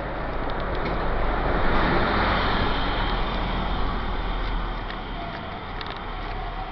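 A road vehicle driving past close by: a rush of engine and tyre noise that swells over the first two seconds and dies away by about five seconds in.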